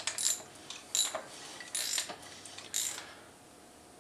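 Ratchet wrench clicking in four short bursts on its back-strokes as it turns a Honda CBR1000F inline-four's crankshaft by hand, bringing the pistons to top dead centre.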